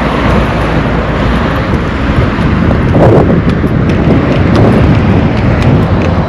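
Wind buffeting the microphone over the steady low hum of a motor vehicle's engine, with a brief louder swell about three seconds in.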